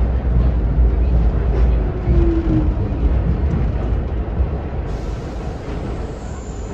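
Subway train running on the rails, a steady rumble with a brief faint whine about two seconds in, the noise easing off over the last couple of seconds.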